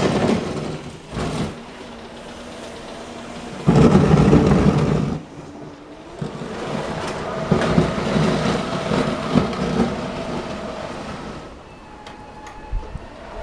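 Small DIY electric tractor working in snow, its electric motor whining steadily, with a loud low rumble lasting about a second and a half about four seconds in.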